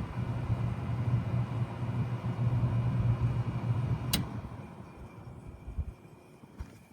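Bard 3.5-ton wall-hung heat pump in heat mode running with a steady low hum. A single sharp click about four seconds in marks its shutdown, and the running sound fades away over the next two seconds as the unit winds down.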